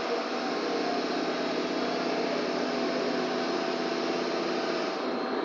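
Steady hum and hiss of running machinery, even throughout.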